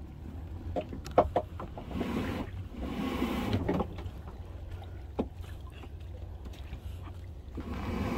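Plastic kayak being pushed off from a marshy bank into the water: a few sharp knocks on the hull about a second in, longer swishing noises around two and three seconds, and another knock near the middle, over a steady low rumble.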